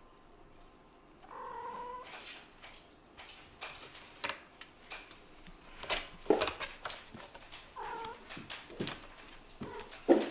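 Kittens play-fighting: a scatter of scuffling knocks and thumps from paws and bodies, with a short pitched kitten call about a second in and another near eight seconds.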